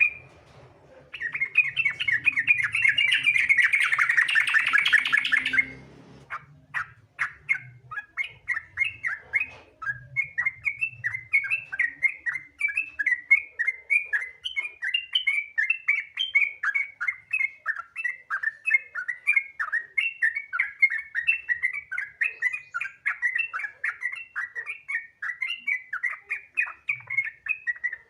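Yellow-vented bulbul (trucukan) singing its rapid 'ropel' song. About a second in comes a dense, fast chatter lasting some five seconds. It gives way to a long run of quick, bubbly repeated notes, a few a second.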